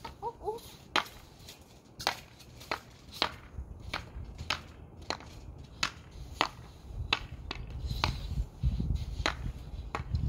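Hockey stick blade clacking against a puck on a trampoline mat in irregular sharp taps, about one or two a second, as the puck is stickhandled back and forth. A low rumble builds in the second half.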